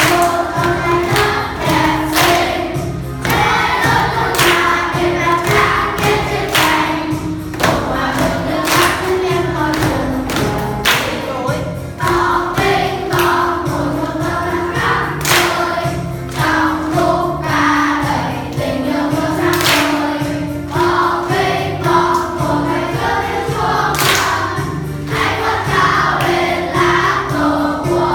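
A class of children singing a song together in unison over instrumental accompaniment, keeping time with percussion taps. A sharp strike falls about every two seconds, with lighter taps between.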